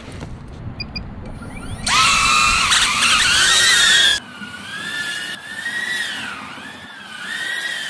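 DJI Avata FPV drone, its propellers and motors whining incredibly loud with several high pitches rising and falling with throttle. The whine starts about two seconds in and runs loud for two seconds, then cuts off suddenly and carries on fainter, still swelling and dipping.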